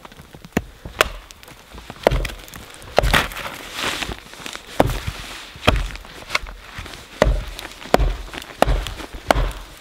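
Axe chopping into dead, dry cedar, hewing the bark side off a split piece. About a dozen sharp blows come roughly one a second, with wood splitting and splintering.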